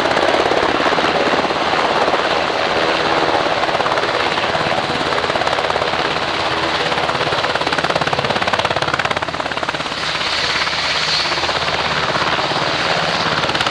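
Army medevac UH-60 Black Hawk helicopter hovering low and setting down: loud, steady turbine and rotor noise with a rapid beat from the main blades.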